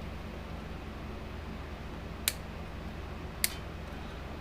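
Two short sharp clicks about a second apart, over a steady low hum.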